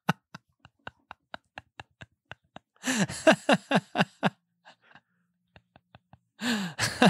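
Men laughing in a run of short, rhythmic chuckles that fade out, then a second, louder burst of laughter about three seconds in. A brief laugh or breath comes near the end.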